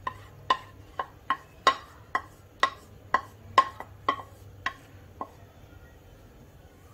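A spatula knocking against the rim of a ceramic bowl while yogurt is scraped out of it into a steel pot: about a dozen sharp knocks, roughly two a second, each with a short ring, stopping about five seconds in.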